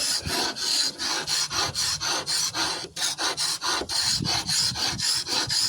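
Hand scraper scraping the blackened finish off an entry door in quick repeated strokes, about four a second.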